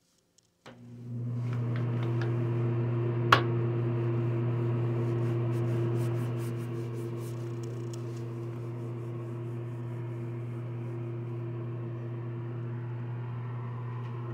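Steady electric motor hum that starts about a second in and drops a little about six seconds in, with one sharp click about three seconds in.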